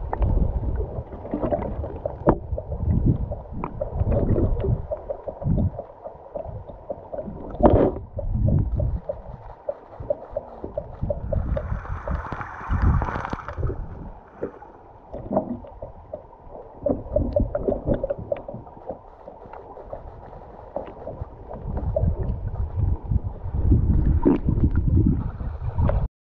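River water heard through an underwater camera: muffled, irregular gurgling and sloshing surges with scattered knocks, mostly low-pitched.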